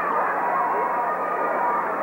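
Crowd voices in a gym, many people yelling and calling out over one another at a steady level, with no stomps or claps standing out.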